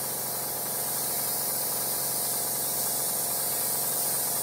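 Airbrush with a 0.35 mm nozzle spraying fine lines of thinned paint: a steady, even hiss of air and paint from the tip, with a steady low hum beneath.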